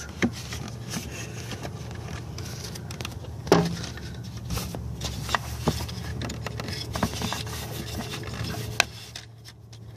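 Handling noise in a car's engine bay: scattered scrapes and light taps, with one sharper knock about three and a half seconds in, as hands and a phone move around the plastic parts. A steady low hum runs underneath.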